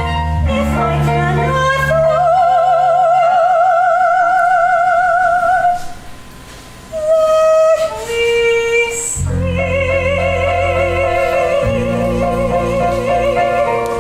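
Female soprano singing in operatic style, holding long high notes with a wide vibrato over an accompaniment. Her voice drops out for a moment about six seconds in, then a final long note is held.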